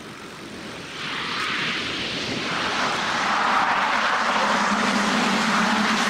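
Lockheed C-130 Hercules four-engine turboprop on its landing roll, its propeller roar swelling about a second in and growing louder, with a steady low hum coming in about four seconds in.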